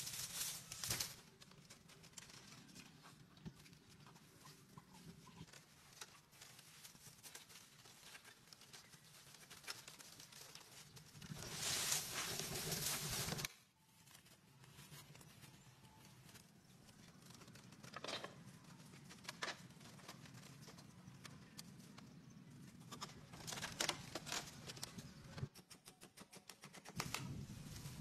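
Dry straw rustling and crackling as bundles are handled and packed into a bamboo frame, with scattered light knocks and clicks. A louder, denser stretch of rustling about halfway through cuts off suddenly.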